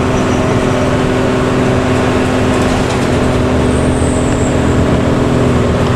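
Luragung intercity bus under way at a steady speed: its engine and growling ('ngorok') exhaust drone evenly over road rumble, with no change in revs.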